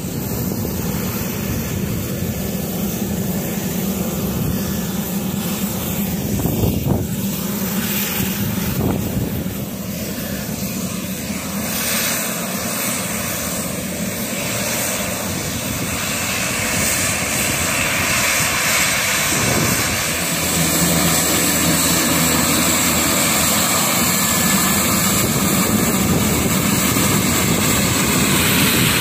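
Twin turboprop engines of an N219 aircraft running as it taxis: a steady propeller and turbine drone that grows louder in the second half.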